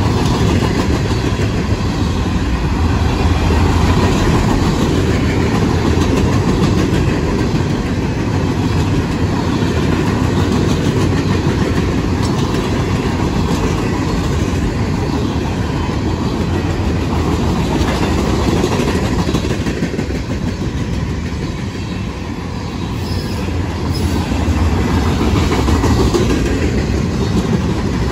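Freight cars of a long CSX train rolling past at track speed: a steady, loud rumble of steel wheels on rail, easing slightly about three quarters of the way through.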